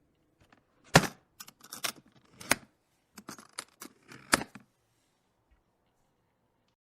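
Handling noises from unpacking a refrigerator: a quick run of sharp knocks and snaps with rustling, loudest about a second in and again near four seconds.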